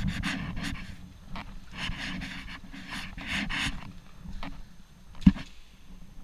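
Heavy panting breaths in repeated bursts over a low rumble, fading after about four seconds; one sharp click about five seconds in.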